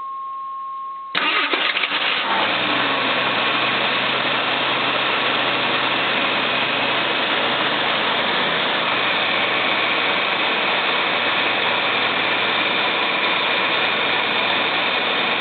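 A steady beep lasting about a second, then the AMC Eagle's engine cranks and catches abruptly and runs on at a steady fast idle. The idle settles slightly about eight seconds in. This comes amid hard starts the owner links to a whirring starter that does not always engage.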